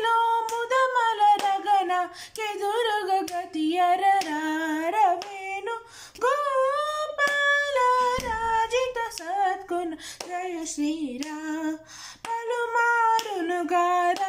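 A teenage girl singing a Carnatic swarajati in Bilahari raga, solo voice with no accompaniment. Her notes waver and slide in quick ornamented turns.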